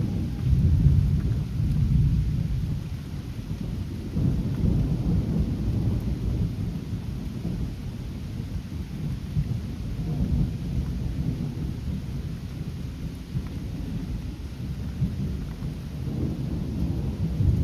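Rolling thunder from a lightning bolt, a long low rumble that swells several times, over steady rain.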